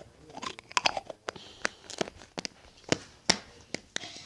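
Crunchy pink crystal raindrop slime being worked by hand, giving off irregular crackling clicks and pops several times a second.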